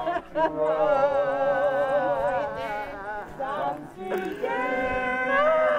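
A group of mourners singing a gospel chorus together, several voices holding long notes with vibrato, with a brief break about four seconds in.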